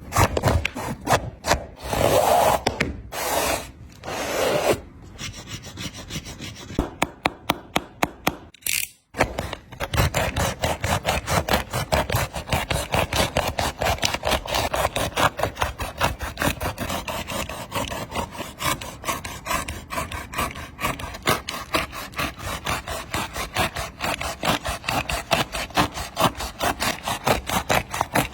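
A Nike Kobe 11 Low basketball shoe being cut apart: rasping, scraping strokes, scattered at first, then after a break about nine seconds in a fast, even run of strokes, several a second.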